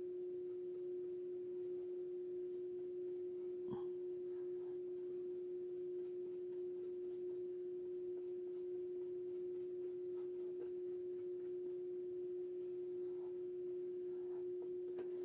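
A steady hum held at one unchanging pitch, with a few faint small taps and clicks over it, the clearest about four seconds in.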